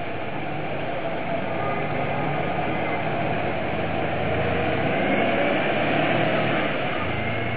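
Mercedes-Benz Citaro single-deck bus's diesel engine pulling away from a stop and passing close by. It grows louder to a peak about five seconds in, then eases as the bus moves off.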